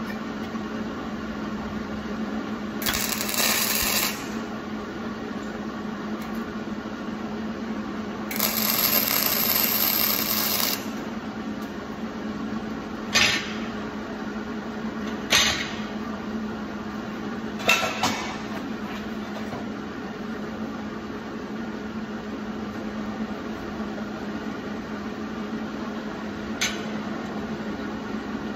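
MIG welding arc on thin sheet metal, struck in separate bursts: one lasting about a second, one about two seconds, then four brief tack welds spread over the rest. A steady low hum sits underneath.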